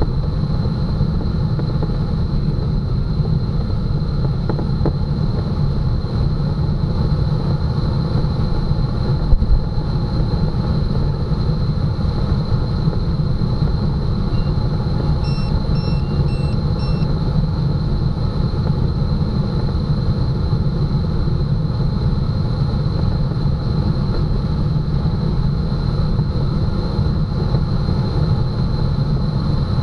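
Steady low rumble of air rushing over an ASW 15 glider's cockpit on aerotow, with a thin steady high tone under it. About halfway through comes a quick run of about five electronic beeps.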